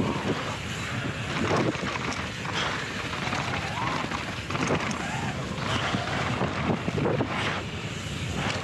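Mountain bike tyres rolling and scrabbling over a loose dirt and gravel trail at speed, with a steady rush of wind over the microphone.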